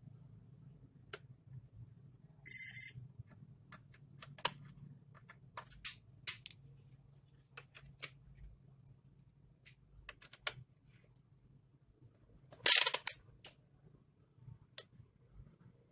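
Scattered small clicks and taps of hand tools being handled during circuit-board repair work, over a faint low hum. A short hiss comes about two and a half seconds in, and a louder brief rasping burst near the end.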